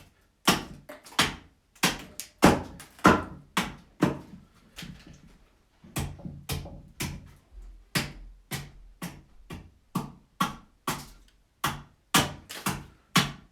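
Axe repeatedly chopping a fresh green-wood blank, hewing it roughly cylindrical. The blows are sharp, about two a second, and come a little more sparsely for a couple of seconds partway through.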